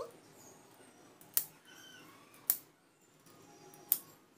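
Three sharp clicks, a second or more apart, from a handheld spring-loaded eyebrow threading tool as its plastic handles are squeezed and released and the twisted thread snaps shut on the hairs.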